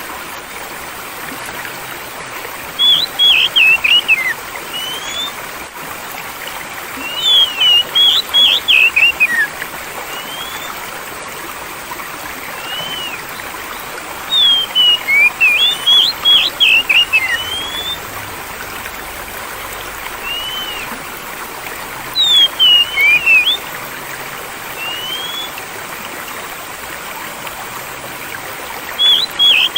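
Steady flowing stream with an oriental magpie-robin (kacer) singing over it. Every seven seconds or so it gives a burst of rapid whistled notes, one to three seconds long, with single rising-and-falling whistles in between.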